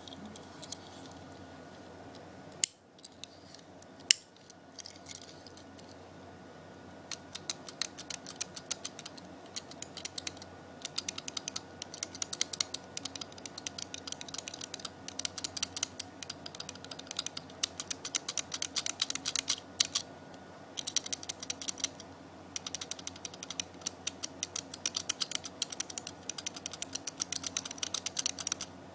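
Rapid, dense clicking rattle of a Tomica die-cast toy car's small wheels being rolled over a surface, in runs of several seconds with short pauses. Two sharp single clicks come first, within the first few seconds.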